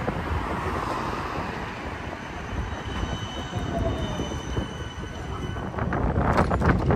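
A GVB Siemens Combino low-floor tram runs into the stop and stands at the platform, with a steady rumble and hum of the tram. Faint thin high tones come through in the middle, and a few sharp clicks and knocks sound near the end.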